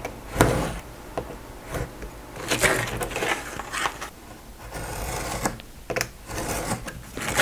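A hobby knife scoring and cutting through stiff, glue-hardened layered napkin sheets on a cutting mat, in several short scraping strokes, with sharp clicks as the stiff cut pieces are lifted and set down.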